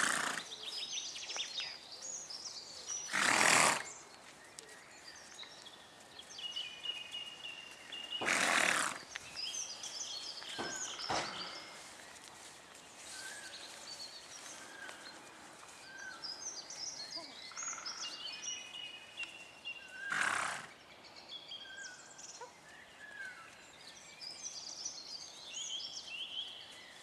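Small birds chirping and twittering throughout, with five short, loud rushes of noise at irregular intervals, the loudest about three seconds in.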